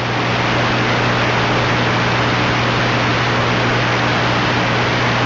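Steady loud static hiss with a low electrical hum underneath, played between the alert tones and the voice message of a mock Emergency Alert System broadcast.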